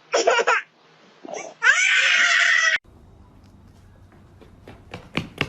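A loud, shrill scream that cuts off abruptly about halfway through, followed by a low hum and a few sharp knocks near the end.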